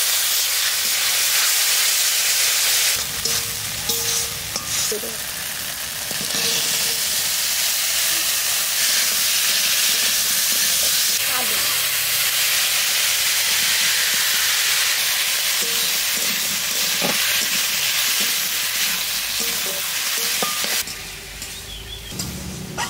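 Onion-and-spice masala sizzling hard in an aluminium kadai as a metal spatula scrapes and stirs it, with a scattering of clicks. Diced vegetables are tipped into the pan partway through, and the sizzle is quieter near the end.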